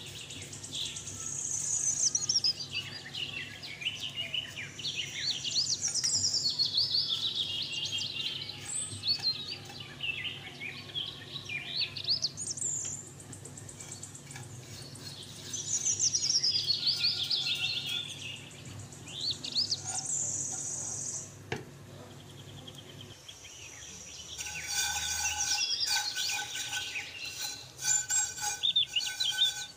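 Birds singing: long phrases of chirps and whistles that sweep up and down in pitch.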